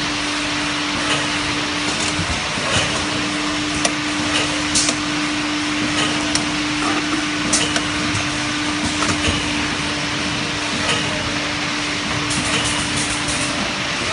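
Automatic multi-head bottle filling machine and its conveyor running: a steady mechanical din with a continuous hum that drops out briefly about two seconds in, and scattered short clicks and hisses.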